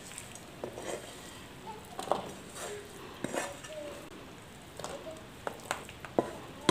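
A spatula scraping and knocking against a kadai as cooked spring onion stir-fry is tipped out onto a plate: scattered light scrapes and taps with a few short clinks.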